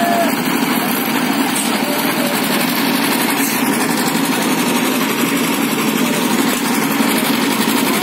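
Engines of portable drum concrete mixers running steadily.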